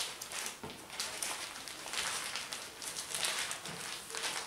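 Linen tea towel rustling and scuffing against the worktop as hands roll it tightly around a warm rolled sponge cake, in a run of irregular soft swishes.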